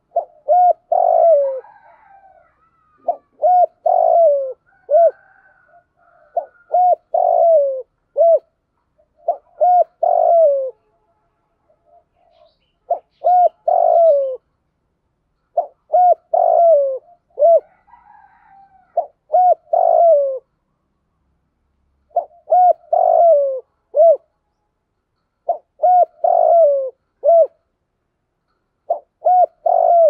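Spotted dove cooing its song: short phrases of a few low coos, each falling at the end, repeated about every three seconds.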